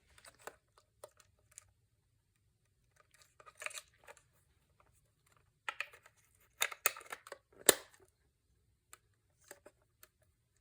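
Handling noises from a plastic alarm clock and its backup battery: scattered light clicks, taps and scrapes, loudest in a cluster about two-thirds of the way through with one sharp click.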